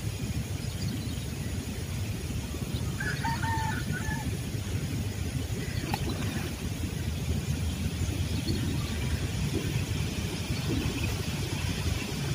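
Steady low outdoor rumble, with a rooster crowing once in the distance about three seconds in and a single faint click around six seconds.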